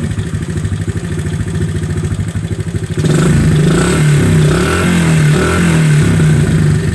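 1970 Honda CT70 Trail 70's small single-cylinder four-stroke engine, running on its newly rebuilt top end and sounding good. It idles with an even beat, then from about three seconds in it is revved louder with the pitch rising and falling, and it drops back to idle near the end.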